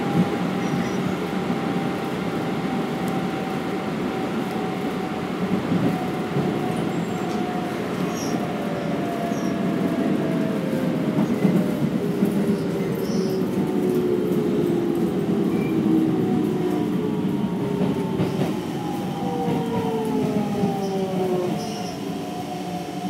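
Keikyu 1500-series electric train running, heard from inside the car: a steady rumble of wheels on rail. In the second half a motor whine falls steadily in pitch as the train slows.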